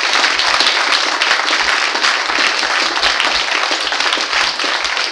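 A live audience applauding: dense, even clapping at the end of a recited poem.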